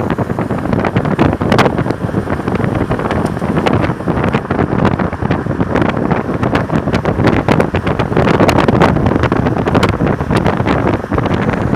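Strong wind buffeting the microphone: a loud, steady rumble broken by frequent crackles.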